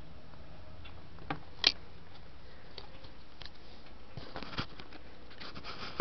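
A few sharp clicks and rustling from handling a handheld camera, the loudest click a little under two seconds in and a run of rustling near the end as the camera is moved, over a low steady room hum.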